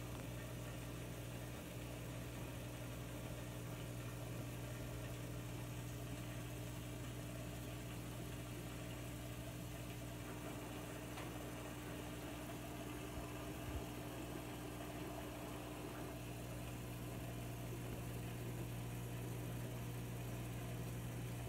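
Steady low motor hum of an aquarium filter pump running, with a faint tap a little after halfway through.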